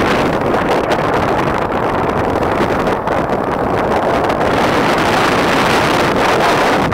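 Wind buffeting the microphone aboard a sailboat under sail: a loud, steady rushing noise.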